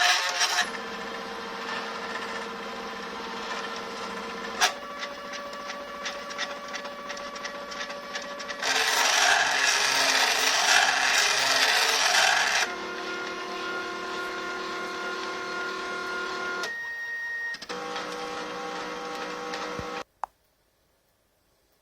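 CNC machine's stepper motors whining through a series of moves, each move held at its own steady pitch, with a louder, harsher stretch in the middle. The motors stop about twenty seconds in, followed by a single click.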